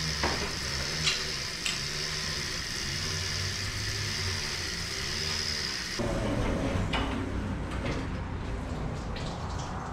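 An overhead hoist lifts a Chevy 305 V8 and its transmission out of a truck chassis: steady mechanical noise, with two sharp clanks about a second in and a change in the sound about six seconds in.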